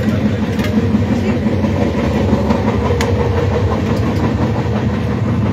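Dhanbad–Alappuzha Express passenger coach running at speed, heard from the gangway between coaches: a loud, steady rumble of wheels on rail with faint clicks and one sharp click about three seconds in.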